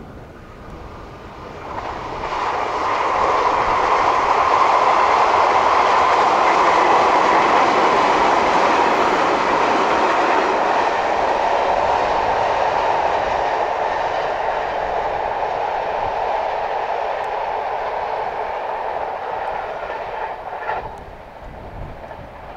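JR 381 series electric multiple unit running past on the line, its running noise rising over about two seconds, staying loud, then slowly fading and dropping away sharply near the end.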